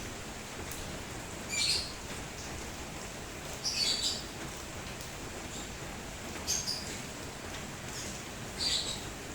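Steady hiss of rain, with a bird chirping four times, short high chirps about two seconds apart.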